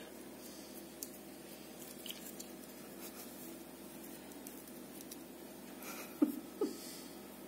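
Faint scraping and clicking as a cat bites and chews on toothbrush bristles. About six seconds in come two short, louder sounds a fraction of a second apart, each falling in pitch.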